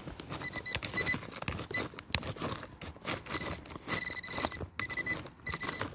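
Handheld metal-detecting pinpointer beeping in short on-off pulses, one longer beep about four seconds in, as it signals a shallow metal target, over the scraping and rattle of dry clods and pebbles being pushed aside.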